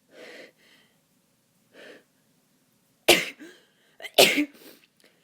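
A person with a congested head cold sneezing twice, about a second apart, wet sneezes partly held back to keep them quiet. Two soft breaths come before them.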